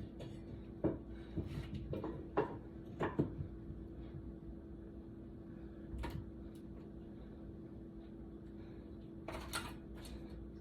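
Scattered light knocks and clatter, several in the first few seconds and a short cluster near the end, over a steady low hum.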